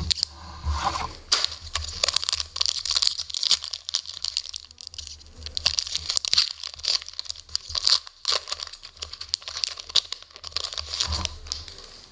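Foil wrapper of an SPx hockey card pack being torn open and crinkled by hand: a dense run of sharp crackles.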